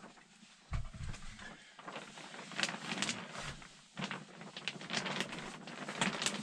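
Polyethylene vapor barrier sheet crinkling and crackling as it is pulled and pressed against the rafters, in irregular rustles and sharp snaps. A low thump about a second in, from the aluminium stepladder underfoot.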